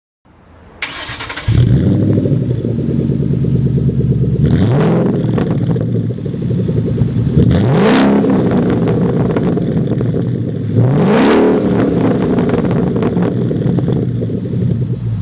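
2011 Ford Mustang GT's 5.0 V8 through an SLP Loud Mouth axle-back exhaust, cranking and firing up about a second in, then idling loudly. It is blipped three times, each rev rising and dropping back to idle.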